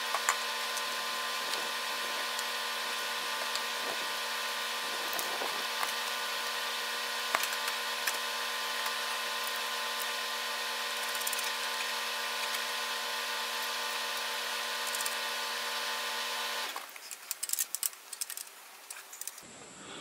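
A machine motor running at a steady, unchanging pitch, with small clicks and taps of a bicycle wheel being handled over it. The hum cuts off abruptly near the end, leaving a few irregular clicks and rattles of the wheel and axle parts.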